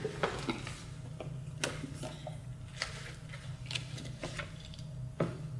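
Light, irregularly spaced taps and clicks, about a dozen in all, over a steady low hum of room tone.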